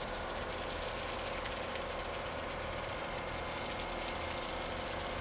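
Cargo ship's engine running steadily as the vessel moves slowly along the river: a low rumble with a constant mid-pitched hum.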